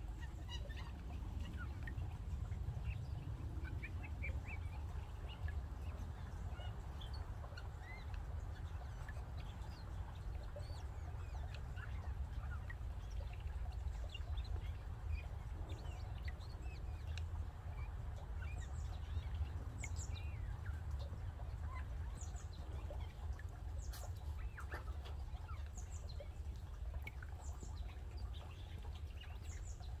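Wild birds calling around a forest spring: many short, high chirps and calls scattered throughout, over a steady low rumble.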